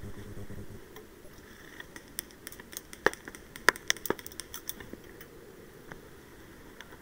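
Dry twigs and brush snapping and crackling as someone pushes through scrub: a quick, irregular run of sharp clicks and snaps over about three seconds, after a low rumble of movement on the microphone at the start.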